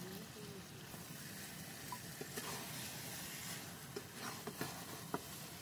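Mushrooms cooking in gravy in a pan over a wood fire, sizzling faintly, with a few light clicks of a metal spatula stirring against the pan in the second half.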